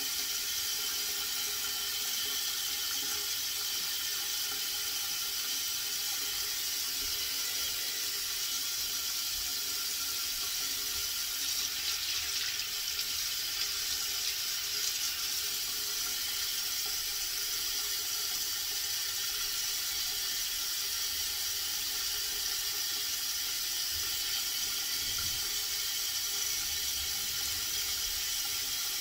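Steady rushing of water running from a tap, unchanging throughout.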